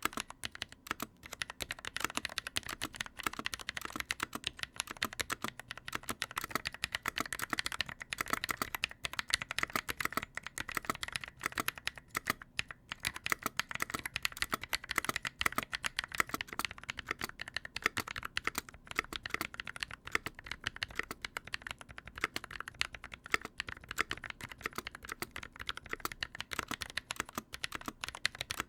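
Steady, fast typing on a mechanical keyboard with lubed Holy Panda tactile switches in a stock Novel Keys NK65 Entry Edition, a dense run of clicky keystroke clacks. The stock spacebar stabilizer rattles, which the owner finds unbearable.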